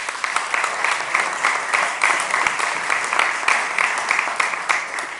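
Audience applauding: dense clapping from many hands, tailing off near the end.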